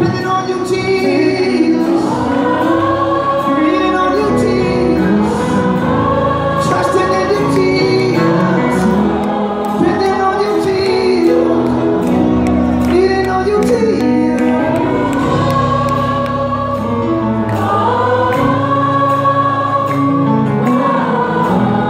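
Gospel choir singing live, many voices holding long chords that swell and glide from note to note.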